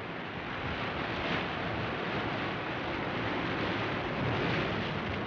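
Rough sea surf and wind, a steady rushing noise that swells slightly about a second in and again near four seconds.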